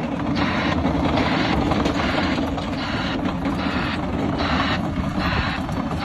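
Cat D7 crawler bulldozer running under load while pushing topsoil: a steady engine drone, with a rattle from higher up that comes back about once a second.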